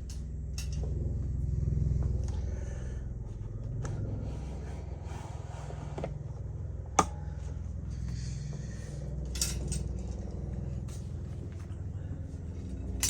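Metal bicycle parts clinking and clicking as a part is fitted by hand, with one sharp click about seven seconds in, over a steady low hum.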